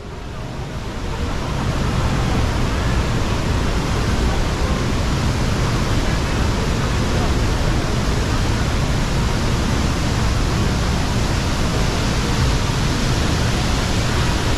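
A waterfall's falling water rushing steadily and loudly, building up over the first second or two and then holding even.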